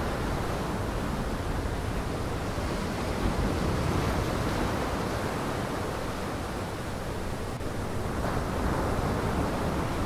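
Waves breaking on a lakeshore with wind: a steady rushing surf noise that swells slightly about four seconds in and again near the end.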